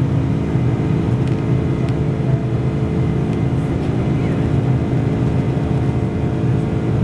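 Boeing 747-400 with GE turbofan engines heard from inside the cabin over the wing during the climb after take-off. The noise is loud and steady, a low drone with several held tones and no change in level.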